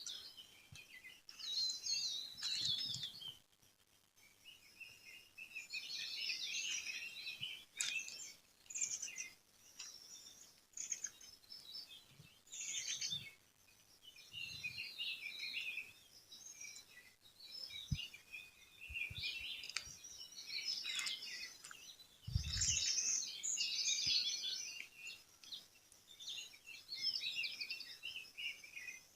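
Several small birds chirping and twittering in quick overlapping bouts, with brief pauses between bouts. A few soft low thumps, the strongest about two-thirds of the way through.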